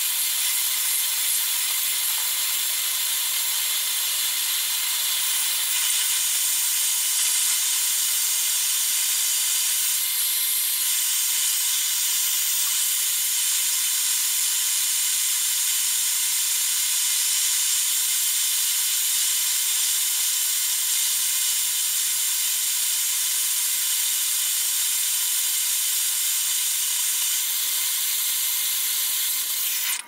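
Handheld gas torch burning with a steady hiss as it melts sterling silver in a crucible; the hiss cuts off suddenly at the end as the torch is shut off.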